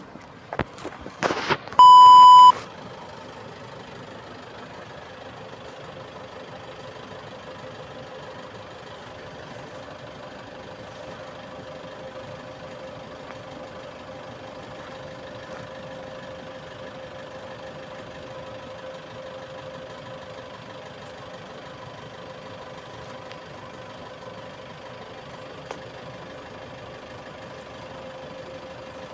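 A few clicks, then a short, very loud beep about two seconds in, followed by a steady machine hum with a constant tone.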